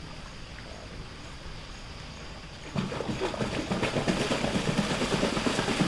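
A hippopotamus flicking its tail and spraying dung into its pool, churning the water into a noisy, irregular splashing that starts suddenly about three seconds in. Faint voices are mixed in.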